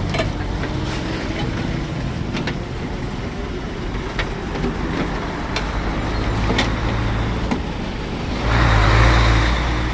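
Steady low vehicle rumble with scattered small sharp clicks, and a louder rushing swell about eight and a half seconds in that fades a second later.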